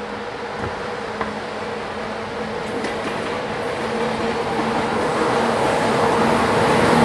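Electric locomotive hauling a long freight train approaching, a steady hum and rumble of the train that grows steadily louder as it nears.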